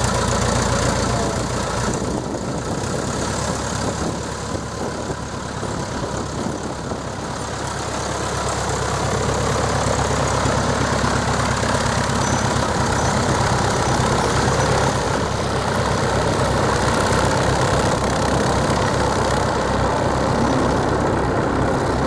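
Piper J-3 Cub's four-cylinder engine running at low power as the plane taxis, a steady pulsing propeller rumble. It dips a few seconds in and grows louder again from about eight seconds in.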